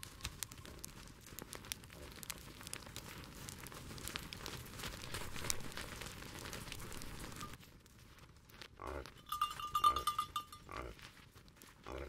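Reindeer herd moving on snow: hooves crunching and many sharp small clicks from their feet. About two-thirds through the sound changes abruptly and several short reindeer grunts follow, one with a higher buzzing tone.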